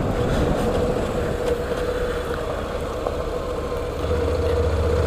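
Honda NC700X's parallel-twin engine running steadily while riding a dirt road. About four seconds in, its low hum grows louder.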